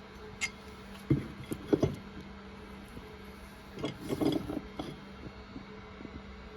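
A few short clicks and knocks in two brief clusters, from small metal tool hardware being handled, over a steady low hum.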